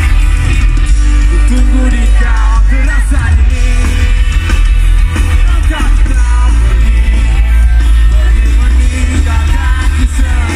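Live rock band playing loudly, with heavy bass and a voice singing over it.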